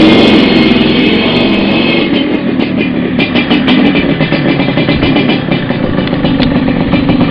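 Motorcycle engine running close by, loud and steady.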